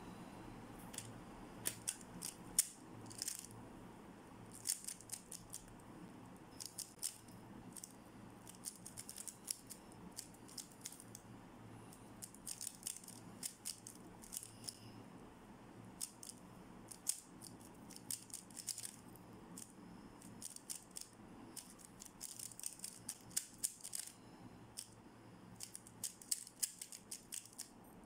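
MoYu RS3M 2020 magnetic 3x3 speedcube being turned fast: bursts of rapid plastic clicks and clacks as the layers are flicked and snap into place, broken by short pauses. The clicking starts about a second in.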